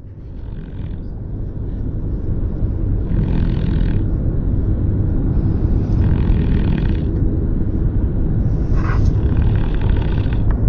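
Beagle snoring, one rasping snore about every three seconds, over the steady low rumble of a moving truck.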